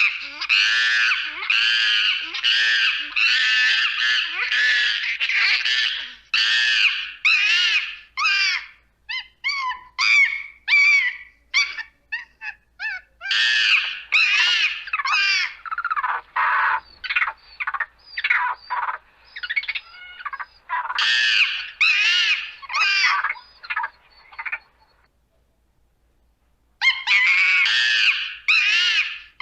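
Monkeys screaming: a long run of high-pitched, pitch-bending shrieks, packed closely together at first and then coming as shorter, separate calls. The screaming stops for about two seconds near the end, then starts again.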